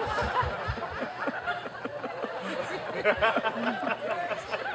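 Audience laughing and chuckling, many voices overlapping.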